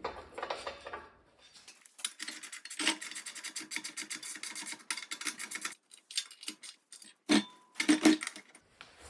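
Hand work on metal parts: a few seconds of rapid scraping clicks, then two sharp metallic knocks, the first ringing briefly.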